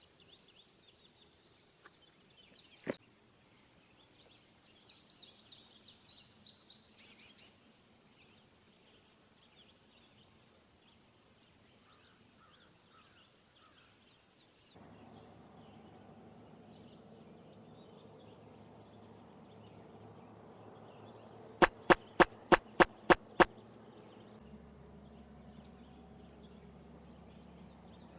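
Outdoor ambience with a steady, high insect drone and a few bird chirps. About halfway through the background changes. Near the end comes a quick run of about eight sharp clicks, a little over four a second.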